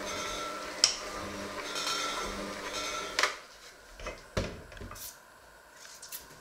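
Electric hand mixer running with its beaters in crumbly dough in a stainless steel bowl, with a sharp clack of beater on metal about a second in. The motor cuts off suddenly about three seconds in, followed by a few knocks of the mixer and beaters against the bowl as it is set down.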